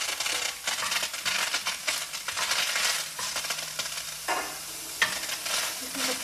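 Lightly steamed green beans sizzling in a very hot, oil-free skillet as they are stir-fried, with repeated scraping strokes of the stirring through a steady hiss.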